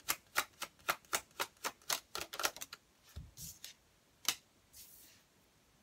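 A tarot deck being shuffled overhand by hand, the cards clicking and slapping together at about four a second. Near the end the shuffling stops and a card is drawn from the deck with one sharp snap.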